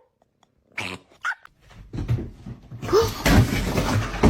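A dog vocalizing: two short calls about a second in, then a rough, noisy stretch that grows louder from about two seconds, with one brief squeak in it.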